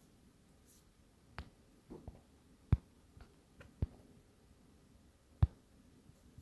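Scattered sharp clicks, about eight of them at irregular intervals, the loudest near the middle and about five and a half seconds in, with near quiet between them.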